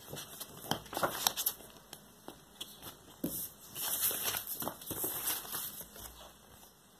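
Paper rustling and crinkling as a large printed LP insert is handled and folded, with sharp crackles early on and a longer, denser stretch of rustling from about three and a half seconds in, as the record's paper inner sleeve is handled.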